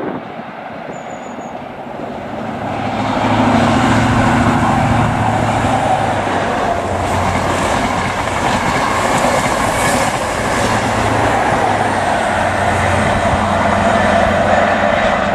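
Class 43 High Speed Train passing through, its diesel power car engine running under the rumble and clatter of wheels on the rails. The sound grows louder about three seconds in as the train draws near.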